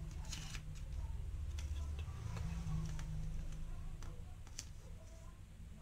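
Faint handling sounds of a paper user manual: scattered small clicks and paper rustles as it is held and leafed through, over a low steady hum.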